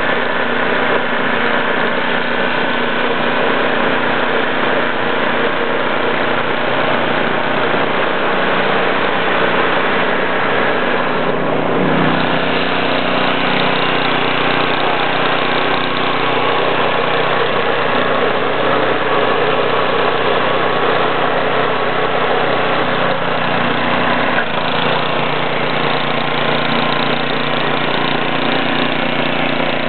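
Ariens ST8 snowblower's 8 hp single-cylinder engine running steadily, its auger and impeller turning and throwing snow out of the chute. The engine note shifts briefly about 12 seconds in and again near 25 seconds.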